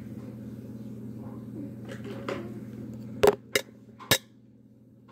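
A steady low hum with a few faint scuffs, then three sharp clicks a little over three seconds in, after which the hum drops away and it goes much quieter.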